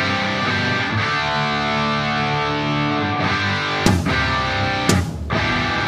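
Background music led by guitar, with two sharp hits about four and five seconds in.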